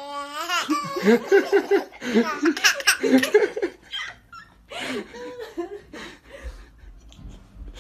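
A baby laughing in quick bursts of giggles, which thin out and grow quieter in the second half.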